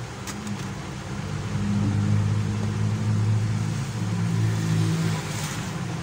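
A low, steady motor hum whose pitch shifts slightly and grows louder about a second and a half in, with one light click about a third of a second in.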